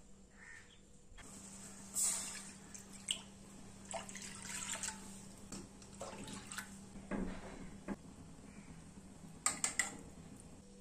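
Water poured and splashing into a stainless steel pot. Near the end a metal spoon clinks three times against the pot.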